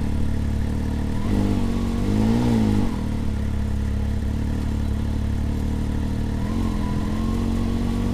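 Can-Am Maverick X3 DS Turbo's turbocharged three-cylinder engine idling with the machine standing still, blipped up and back down about a second in and rising a little again later. The throttle is being eased up toward the stock primary clutch's engagement point, which comes at about 2100 rpm.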